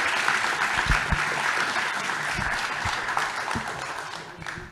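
Audience applauding, the clapping fading out near the end.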